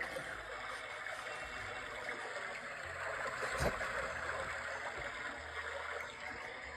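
Steady rushing noise, like running water, with a single soft knock about three and a half seconds in.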